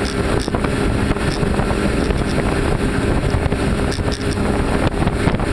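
Three outboard motors running at high speed on a planing boat, a steady engine drone under the rush of water and heavy wind noise on the microphone.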